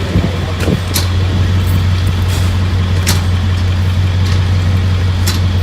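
Engine of a towing vehicle running steadily with a low hum while it drags a car whose rear wheels are seized. A few short sharp clicks come through, about a second in, around three seconds and near the end.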